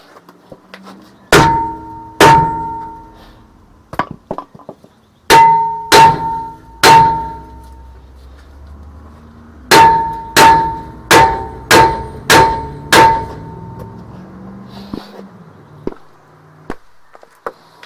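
Hammer blows on a steel brake disc rotor to free it from the hub: eleven sharp metallic strikes in three bursts of two, three and six, each leaving the disc ringing with a clear tone.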